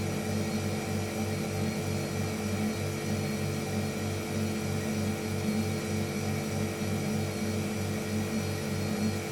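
Household refrigerator running with a steady electric hum from its compressor, the deep tone pulsing about three times a second over a layer of steady higher tones.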